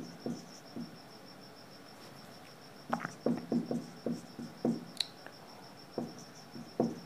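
Marker pen writing on a whiteboard: a run of short scratchy strokes about three seconds in and again near the end, with a sharp click about five seconds in. Under it runs a faint, steady, high-pitched chirp pulsing about six times a second.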